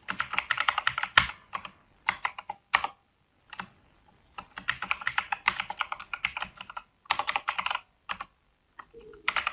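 Typing on a computer keyboard: quick runs of keystrokes in bursts with short pauses between them, and a few louder single clicks.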